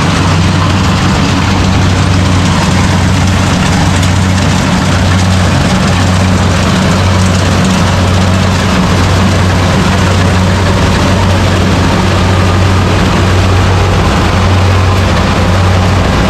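Rice combine harvester running steadily at work: a constant low engine hum over an even rushing noise, loud and unbroken.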